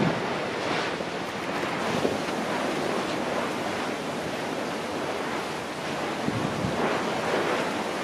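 Steady rushing noise from an active lava vent and channel, with wind gusting on the microphone in a few swells.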